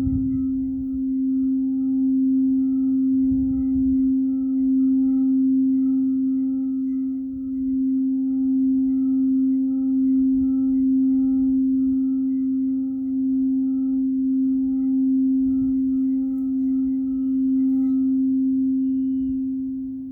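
Singing bowl sounding one sustained low tone, with fainter higher overtones pulsing in a slow wobble. The tone dips briefly near the end, then swells again.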